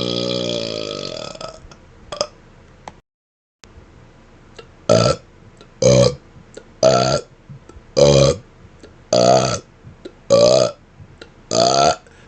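A man's long burp trailing off in the first second and a half. After a short silence comes a string of seven short burps, about one a second.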